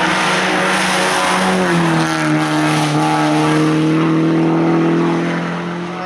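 Seat Leon race car's engine running hard through a hairpin, loud and close. Its note steps down once about a second and a half in, then holds steady.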